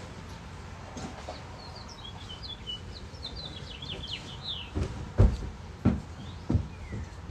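Small wild songbird chirping in a quick string of short, high notes. Then come a few dull thumps over the last couple of seconds, the loudest about five seconds in.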